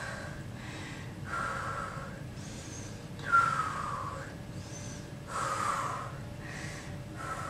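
A woman breathing heavily through a held deep stretch: four long breaths, about two seconds apart, some with a faint whistling tone.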